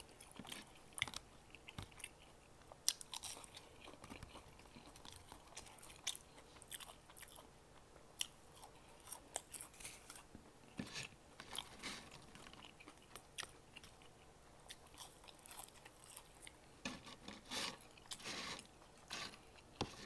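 A person chewing fast food close to the microphone: faint, irregular wet mouth clicks, smacks and crunches, busier in a few short stretches.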